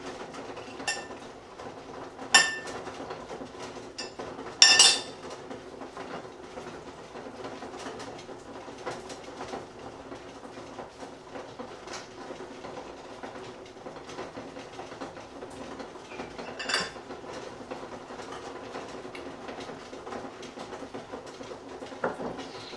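Metal cutlery and utensils clinking against china plates and a wooden board: three sharp clinks in the first five seconds, the last ringing briefly, then single clinks about two-thirds of the way through and near the end. A steady low hum underlies it all.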